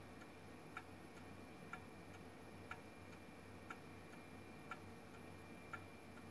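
Small coffee-cup gamma Stirling engine running, its piston and crank linkage clicking once per turn of the flywheel, about once a second, with a fainter click between each pair.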